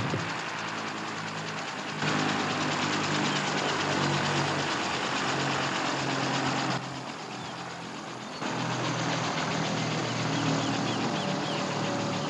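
An engine running with a fast, regular chop. Its level jumps abruptly about two, seven and eight seconds in.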